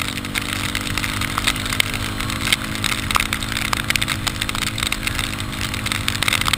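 Yamaha Ténéré 250's single-cylinder engine running at a steady, unchanging pitch, with frequent sharp ticks and crackles over it.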